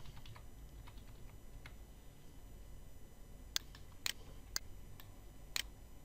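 Computer mouse clicking: a few faint clicks in the first two seconds, then four sharper single clicks, about half a second to a second apart, in the second half.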